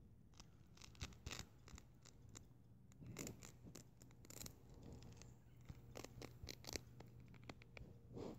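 Near silence with faint, irregular clicks and rustles scattered through it, over a faint steady low hum.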